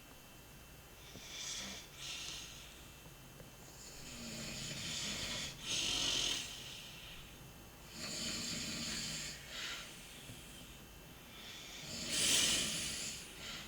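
A sleeping person snoring: noisy, rasping breaths come and go about every four seconds, the loudest one near the end.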